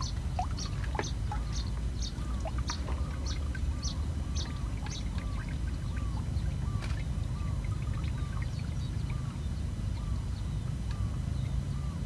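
Birds calling: a quick series of short, high chirps that fades out about five seconds in, over a lower, dipping call repeated about twice a second, with a steady low rumble underneath.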